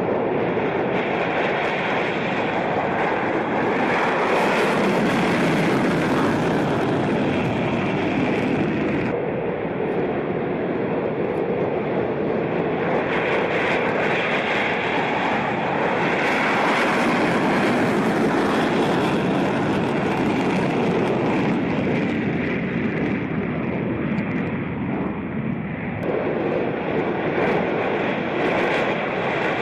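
Jet noise from F-22 Raptor fighters' twin Pratt & Whitney F119 turbofan engines at takeoff power on the runway roll. It is a steady, loud rushing that swells twice, and its character changes abruptly near the end.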